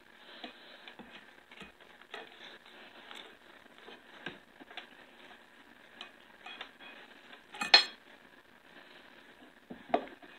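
Knife filleting a small bluegill on a ceramic plate: scattered faint scrapes and taps of the blade against the plate, with one sharp clink of metal on china about three-quarters of the way through.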